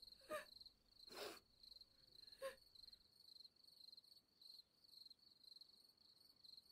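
Near silence, with a faint cricket chirping steadily in a run of short, even pulses. A few soft breathy sounds come in the first three seconds.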